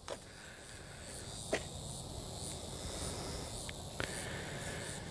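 Faint outdoor background of an insect chirping high and in a steady repeating rhythm, with a few short light clicks.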